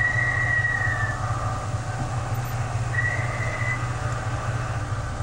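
Steady low drone of a ship's machinery heard from inside the wheelhouse, with two high whistling tones, the first about a second long and dipping slightly at the start, the second shorter about three seconds in.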